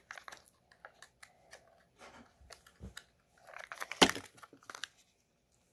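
Crinkling and clicking of a small plastic toy capsule and its wrapping being handled and pried at while trying to get it open, with a denser burst of crackling and one sharp click about four seconds in.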